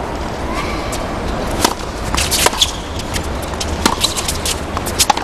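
Tennis rally on a hard court: the ball struck by racquets with sharp pops about every second to second and a half, softer bounces between them, over a steady stadium hum.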